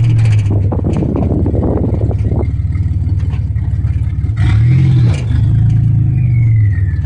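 Buick Grand National's V6 idling rough and unevenly, with one short blip of the throttle about four and a half seconds in and a falling whine near the end.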